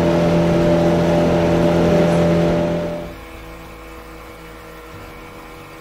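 Small boat's outboard motor running steadily at speed, with a rush of wind and water. About three seconds in it fades out and soft background music takes over.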